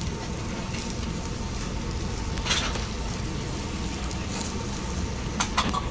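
Chicken skewers sizzling on a direct-fire grill, a steady hiss, with a short clatter about halfway through and a couple more near the end.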